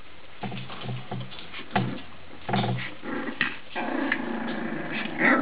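Puppies play-fighting, giving short low growls and whimpers from about half a second in, then a longer steady growl in the second half and a louder sharp cry near the end.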